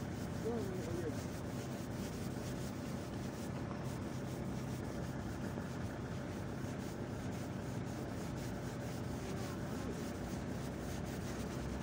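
SA139 diesel railcar's engine running steadily in the distance as the train sets off from the station, with handling noise rubbing close on the microphone.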